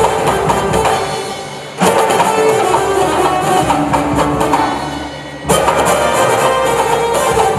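Live Indian–Western fusion band playing: chenda, thavil and mridangam drums with drum kit, electric guitar, bass guitar and keyboard. A phrase starts on a loud ensemble hit about two seconds in and again about five and a half seconds in, each time dying away.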